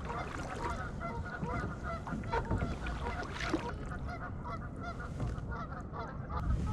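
A flock of geese honking, many short calls overlapping one another without a break.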